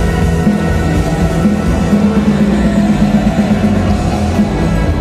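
Rock band playing live through a concert PA, heard from the crowd: drums, electric guitars, bass and sustained keyboard chords run loud and steady.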